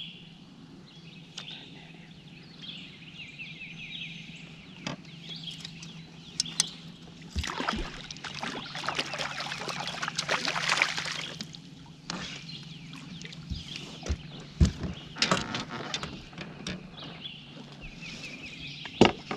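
A hooked crappie thrashing and splashing at the water's surface beside a boat for a few seconds about halfway through as it is brought to the net. Afterwards come scattered sharp knocks and rattles as the landing net is lifted against the boat.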